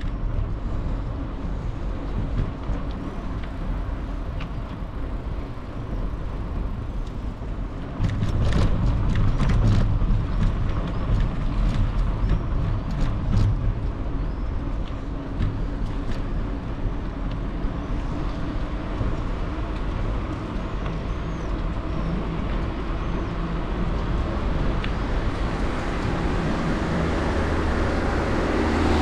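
Riding noise from a moving bicycle: a steady low rumble of wind and tyres on the road. It gets louder about eight seconds in, with a run of sharp clicks and rattles for several seconds after that.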